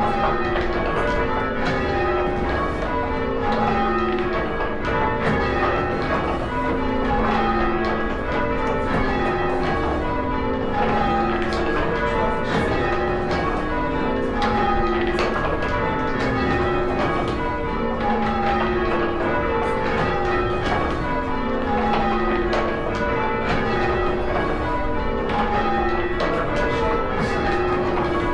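A ring of six church bells in English change ringing, swung full circle and struck one after another in an even rhythm, row after row, with each note ringing on under the next.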